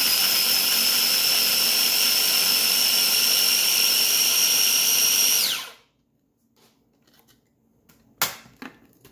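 Small electric food chopper running steadily with a high whine, chopping dried and fresh red chilies, shallots and salt into a paste. About five and a half seconds in the motor stops and the whine drops away, followed by a few light clicks and two sharp knocks.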